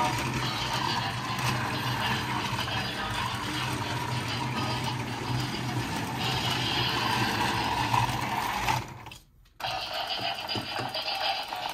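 Mickey Mouse Funhouse Light the Way musical toy train running: its small electric motor and gears hum while its electronic music and sound effects play through a small speaker. About nine seconds in, everything cuts out for half a second, then a tune starts up again.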